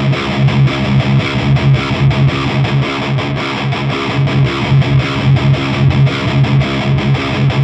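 Distorted electric guitar played through an Orange Rockerverb 100 MKIII 100-watt valve amp head, a fast, steady run of repeated picked low notes. The amp's bass control is being swept as it plays, adding and removing low end.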